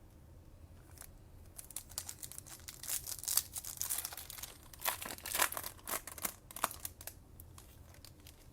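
Foil wrapper of a trading card pack being torn open and crinkled, a run of sharp crackles that starts about a second in and dies away near the end.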